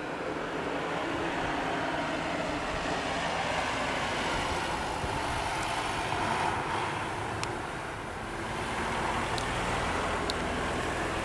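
Road traffic: cars passing on the street below, a steady rushing noise that swells, dips and swells again. A few brief sharp clicks come in the second half.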